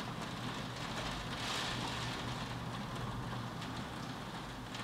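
Steady rain falling during a thunderstorm, swelling briefly about a second and a half in, over a steady low hum.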